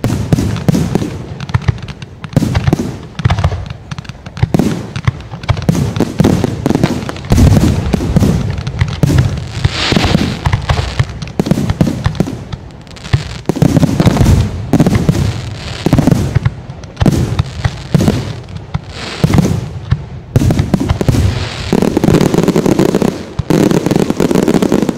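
Fireworks display: a dense, rapid barrage of bangs and crackling from shells and ground-launched effects going off in quick succession.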